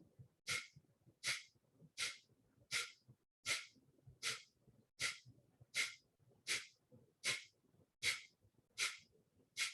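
Kapalbhati breathing: a steady run of short, sharp, forceful exhalations through the nose, about one every three-quarters of a second, thirteen strokes in all.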